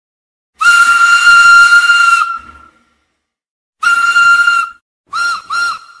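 Steam locomotive whistle sound effect with steam hiss: one long blast, a shorter blast, then two quick toots, all at the same steady pitch.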